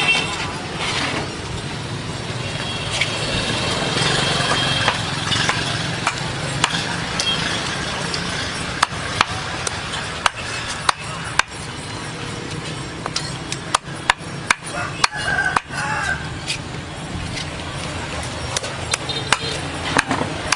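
Steady low hum with a run of sharp knocks and clicks through the middle of the stretch, some coming close together.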